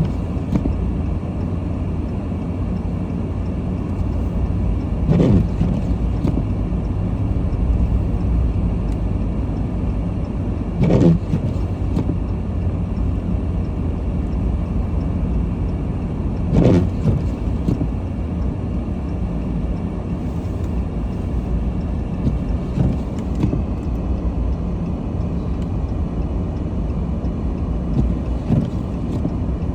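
Steady low road and engine rumble inside a car's cabin while driving on snowy roads, with three short louder sweeps or knocks spaced about six seconds apart.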